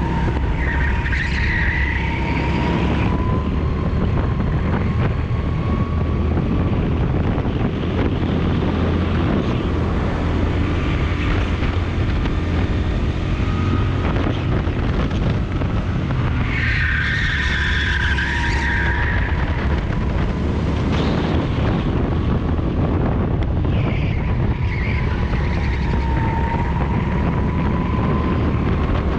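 Rental go-kart engine running flat out, heard on board with heavy wind noise; its pitch climbs and falls as the kart speeds up and slows. Tyres squeal briefly through corners, near the start, about two-thirds of the way in and again later.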